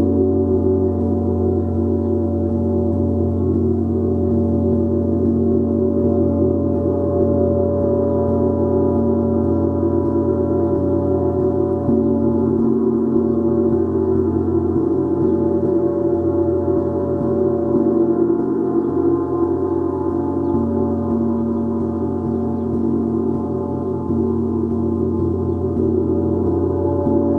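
Gong sounding continuously: a dense, sustained wash of many overlapping tones, swelling and easing slightly, with no distinct strike standing out.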